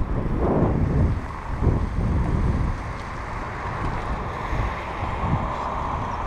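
Wind rumbling on the microphone of a camera carried on a moving bicycle. It gusts hardest in the first couple of seconds, then eases.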